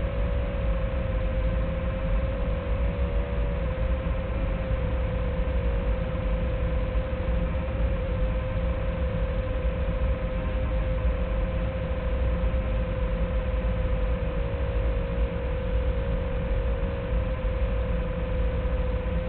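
Small FPV drone's motors and propellers whining at a steady, slightly wavering pitch over a heavy rumble of wind noise, with a thin, narrow-band sound.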